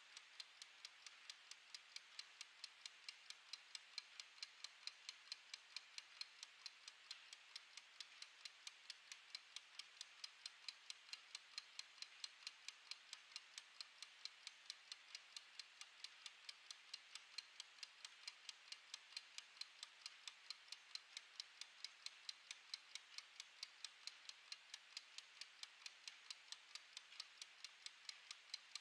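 Clockwork gear mechanism of a wind-up mechanical kitchen timer ticking faintly, in a quick, even rhythm as it counts down.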